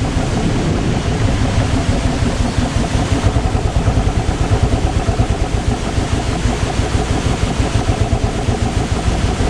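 Motorcycle engine running steadily while the bike is ridden, its exhaust pulsing fast and evenly.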